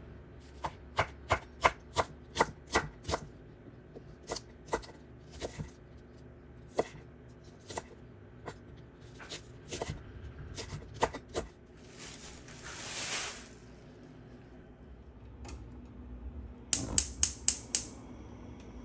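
Kitchen knife chopping green onions on a wooden cutting board: sharp knocks, about three a second at first, then slower and uneven. About twelve seconds in there is a brief scraping hiss, and near the end a quick run of about six sharp clicks.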